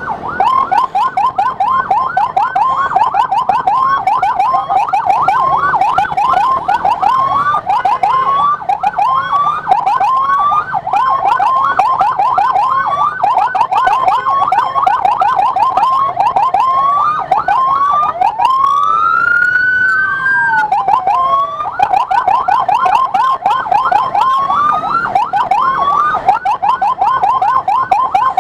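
Electronic siren in a fast yelp, sweeping up and down several times a second, loud and close. Past the middle it switches to one long slow rise and fall, then goes back to the fast yelp.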